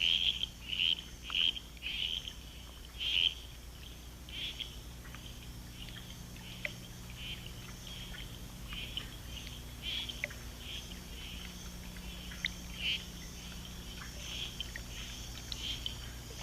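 Tree frogs calling: a quick series of short, high chirps about every half second for the first few seconds, then fainter scattered calls and clicks over a faint steady low hum.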